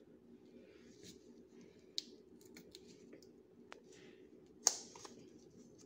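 Quiet handling noise as condensed milk is squeezed from a carton into an aluminium cake pan: crinkling of the carton and a plastic glove, with scattered small clicks, a sharp tap about two seconds in and a louder one near the end.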